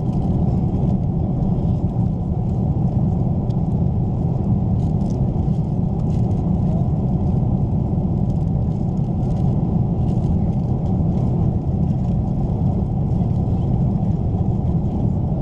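Steady low rumble of an Airbus A330-300 cabin in flight, with a few faint clinks and rustles of cutlery and meal packaging on the tray table.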